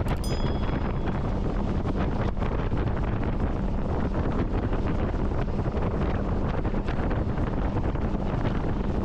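Wind buffeting the microphone: a steady, rumbling rush throughout. A brief click with a short high ring comes right at the start.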